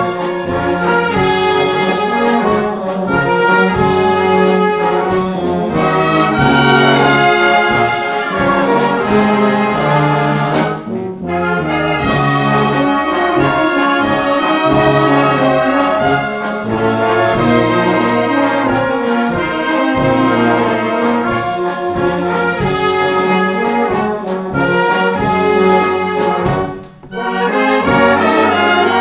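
A brass band (Blaskapelle) of brass and wind instruments playing a concert piece, with a tuba bass line under trumpets and trombones. The band stops together for a brief rest twice, about eleven seconds in and again near the end, then plays on.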